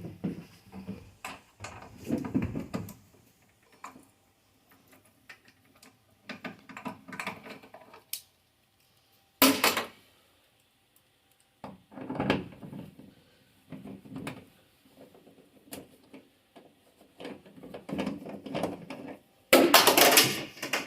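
Metal shelf brackets and bolts being handled and fastened inside a van's cargo area: scattered clanks, clicks and rattles in short bouts with quiet gaps, the loudest clatter near the end.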